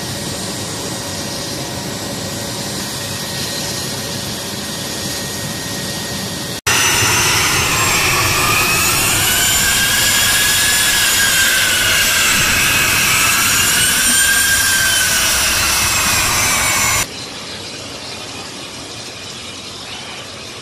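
A-10 Thunderbolt II's GE TF34 turbofan engines running on the ground, a steady jet whine. About six and a half seconds in it becomes much louder, with a whine that rises and falls in pitch. It drops back to a quieter jet rumble near the end.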